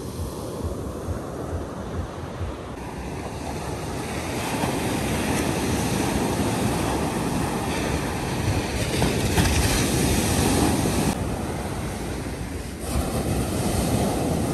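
Sea waves washing onto a beach, swelling louder a few seconds in, with wind rumbling on the microphone.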